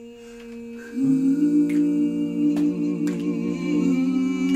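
A female and two male voices singing a cappella, holding long notes in close harmony. One held note comes first, then the other voices join about a second in to form a sustained chord. A few sharp clicks sound over the chord.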